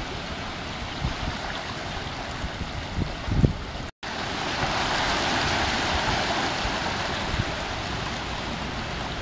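Seawater washing and surging through a narrow channel in coral rock, with low gusts of wind on the microphone. The sound drops out for a moment about four seconds in. Then a wave swells up and rushes through, easing off near the end.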